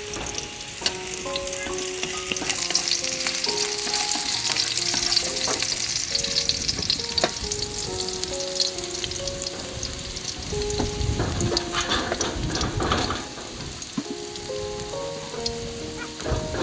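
Food sizzling as it fries in a pan, with scattered clicks of a utensil stirring it, under soft background music of short single notes.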